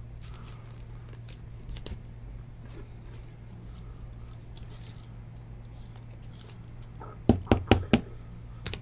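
Soft plastic rustling as a trading card is sleeved and slid into a rigid plastic top loader, then a quick run of about four sharp clacks near the end as the hard plastic holder is set down on a stack of others. A steady low hum lies underneath.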